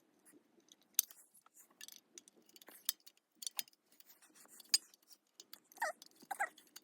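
Scattered clicks and metallic clinks of a screwdriver and screws being taken out of the horn on a Sterling F-2 siren's metal housing.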